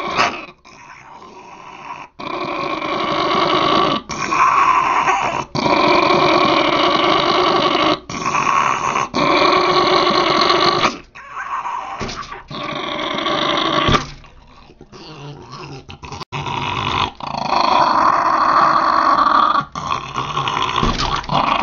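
Small dog growling and snarling with bared teeth in long bouts, breaking off briefly to breathe between them and going quieter for a few seconds past the middle. It is a nervous, defensive growl at a stranger.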